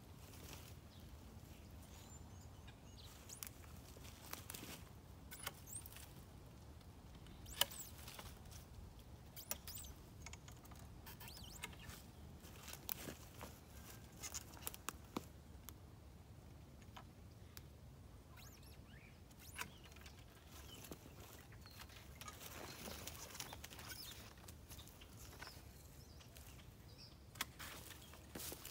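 Loppers cutting branches on a dormant pluot tree: sharp snips and twig snaps at irregular intervals, the loudest about eight seconds in, with rustling of branches and dry leaves, most of it around twenty-two to twenty-four seconds in.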